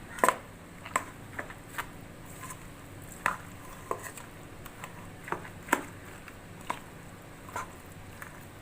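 A spoon knocking and scraping against a bowl in irregular clicks while stirring a thick pakora mixture of boiled elephant foot yam, onion, spices and gram flour.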